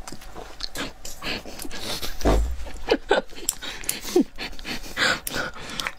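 Close-miked eating noises: wet slurping and chewing on spiny lobster meat, with clicks and cracks as the shell is handled and cut with kitchen shears.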